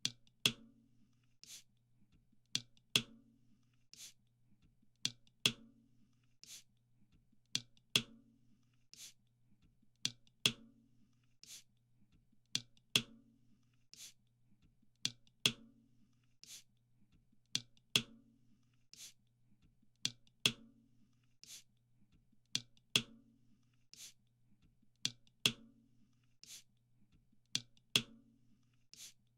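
Soda can tab pops repeating in a loop: sharp clicks, with a pair of louder pops about half a second apart every two and a half seconds and single softer clicks between them, over a faint low hum.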